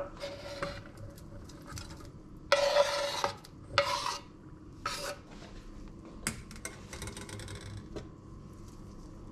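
Kitchen knife blade scraping diced ham across a bamboo cutting board into a metal mixing bowl in several strokes, the longest and loudest about two and a half seconds in, with a faint ring from the bowl. A few light clinks of metal follow in the second half.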